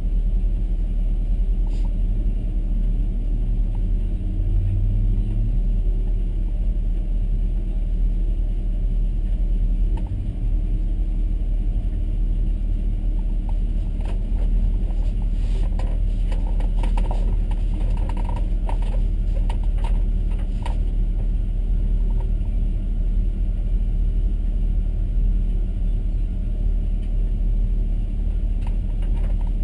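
Porsche 911 GT3 R race car's flat-six engine heard onboard, running steadily under load on track, with a spell of clicks and rattles about halfway through.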